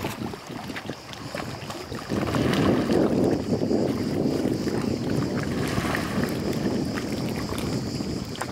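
Small sea waves lapping and sloshing against a stone quay, louder from about two seconds in, over a faint steady high-pitched hiss.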